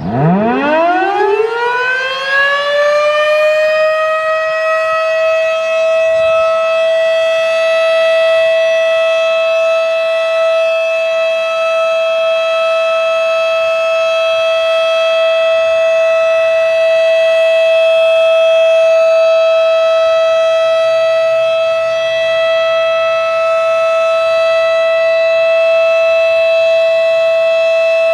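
Federal Signal Model 7B single-tone, 12-port chopper siren winding up from low to full pitch in about three seconds, then holding one steady, loud tone: the Alert signal of a tornado-siren test.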